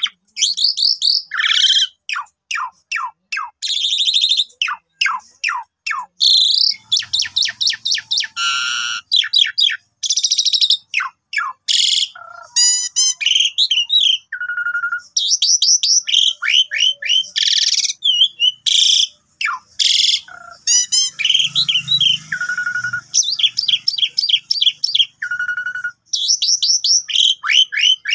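Asian pied starling (jalak suren) in full, continuous song: a rapid string of varied phrases mixing falling whistles, quick trills and harsh, buzzy chattering notes with short pauses between.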